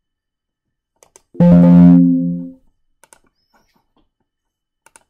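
A short computer alert chime: one plucked-sounding chord that starts suddenly about a second and a half in and fades out over about a second. Faint mouse clicks come just before and after it.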